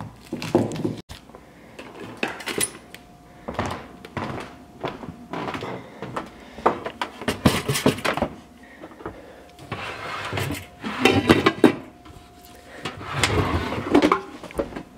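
Irregular knocks, clunks and rustling as things are shifted about in a low kitchen cabinet and a slow cooker is pulled out, with the loudest clatter near the middle and toward the end.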